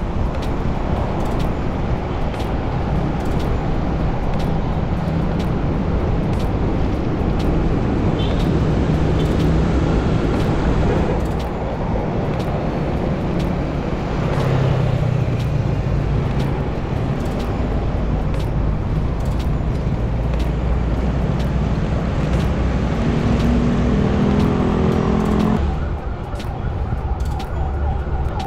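Wind rushing over an action camera's microphone on a fast-moving bicycle, mixed with road traffic: car engines and tyre noise. Near the end the wind drops and a steady siren tone begins.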